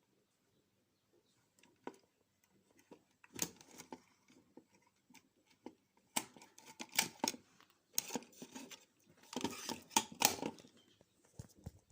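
Irregular clicks and rustling of objects being handled close to the microphone, busiest in the second half.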